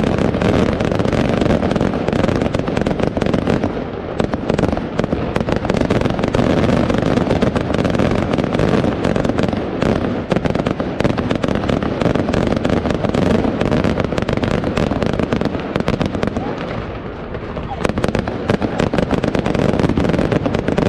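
Fireworks display: a dense, continuous run of shell bursts and crackling bangs, many close together, easing briefly about three-quarters of the way through before picking up again.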